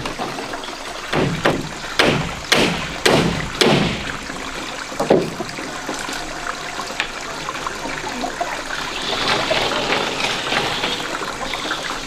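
Hammer nailing split bamboo laths onto a wooden roof frame: a quick series of about six sharp blows over the first four seconds and one more a second later. After that, the steady trickle of a stream runs alone.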